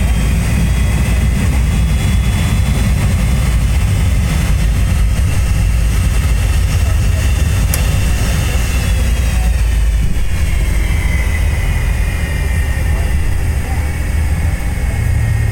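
Jet airliner engines heard from inside the passenger cabin: a steady low rumble under a high engine whine that slides down in pitch about halfway through.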